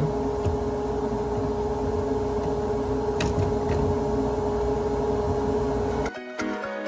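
Handheld plunge router running at a steady high whine while it cuts a circle in quarter-inch HDPE plastic. About six seconds in it cuts off and music begins.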